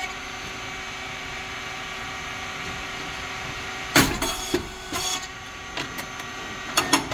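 SYP8502 rice cake popping machine running, its motor and hydraulic pump giving a steady hum. About four seconds in there is a loud sudden burst and another about a second later, typical of the heated moulds opening as the rice cakes puff, with sharp clicks near the end.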